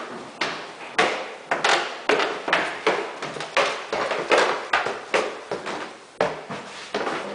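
Footsteps climbing hardwood stairs: a steady run of knocks on the wooden treads, about two or three a second.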